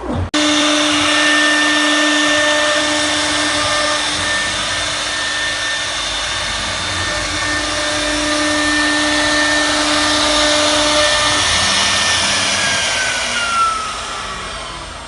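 CNC router spindle running at high speed, a steady whine over a loud rushing noise. Near the end the whine falls steadily in pitch and the noise fades as the spindle winds down.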